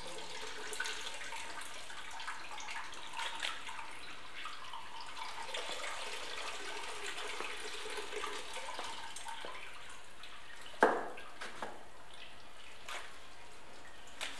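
Indigo dye trickling and dripping back into the dye vat as a hank of dyed yarn is twisted tight with a rod to wring it out. A sharp knock comes about three-quarters of the way through, with a few fainter knocks after it.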